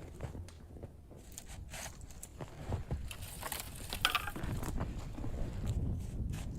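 Irregular crunching and scraping sounds, busiest about halfway through, over a steady low rumble.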